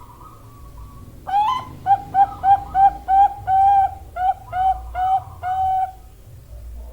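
Female zebra dove (perkutut bangkok) cooing: a run of about a dozen short staccato coos starting a little over a second in, quick at first, then longer notes.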